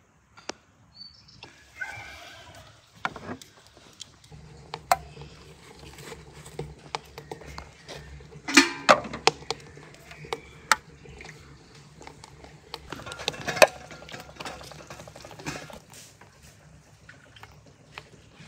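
Glass jars knocking and clinking as they are handled and set into a pot of water, with some splashing between the knocks.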